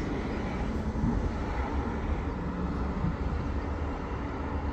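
Steady road noise from an electric truck driving away, mostly its tyres, with low wind rumble on the microphone. There is no engine note from the truck.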